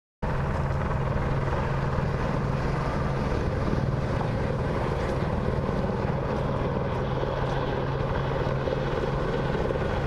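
Helicopter rotor and engine noise, a loud steady drone that cuts in abruptly just after the start.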